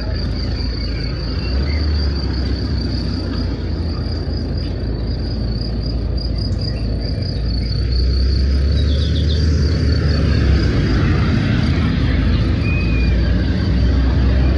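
Insects chirping in a steady high-pitched trill over a low rumble that grows louder about eight seconds in.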